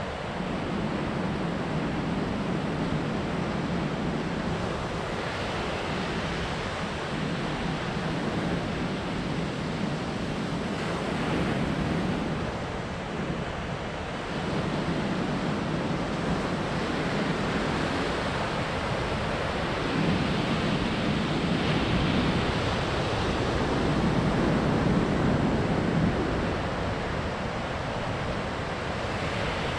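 Ocean surf breaking on a sandy beach: a continuous wash of waves that swells and eases every few seconds.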